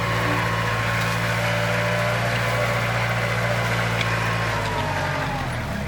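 Kubota tractor's diesel engine running steadily, its pitch dropping a little near the end.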